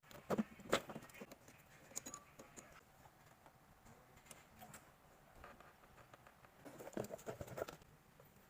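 Small clicks, taps and rustles of hands handling wiring and a plastic electrical connector. They come in a brief cluster in the first second and another about seven seconds in, with fainter scattered ticks between.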